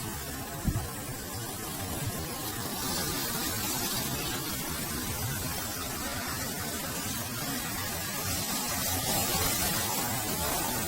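Steady hissing noise with a low rumble underneath, and no clear tone or voice; a single short low thump comes about half a second in.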